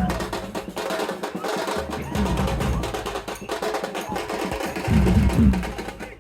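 Procession drumming: fast, dense sharp strikes with heavy low drum beats, about two and five seconds in.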